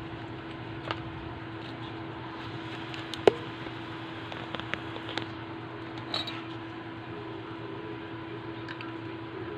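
Several clicks and knocks as the TV's power-supply circuit board is handled on its sheet-metal chassis, the loudest a sharp knock about three seconds in, over a steady background hum.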